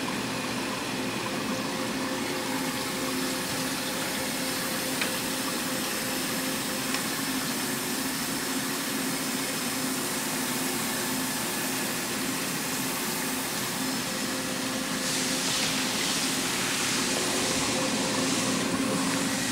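Mitsubishi FX10 wire EDM's dielectric water system running: a steady hum of pump and chiller with water running through the filters. A louder hiss joins about fifteen seconds in.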